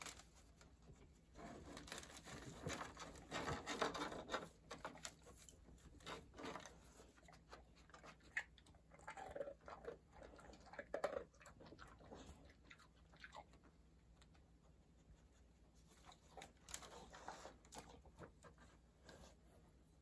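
A dog rummaging nose-first through a cardboard box and crumpled paper for kibble: faint rustling, crinkling and crunching in spells, loudest a couple of seconds in and again about halfway.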